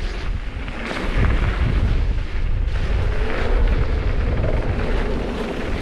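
Loud wind buffeting on the microphone: a dense, unsteady low rumble.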